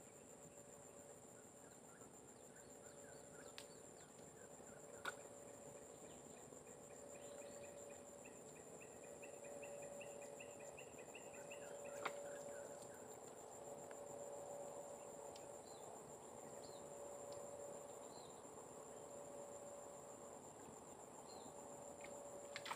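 Faint, near-silent swamp ambience: a steady high insect drone, with a short run of rapid repeated chirps near the middle and a few light clicks.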